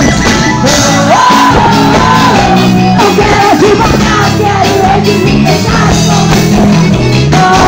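Loud live band music, a bass line stepping through its notes, with fans singing along into the singer's handheld microphone over a shouting crowd.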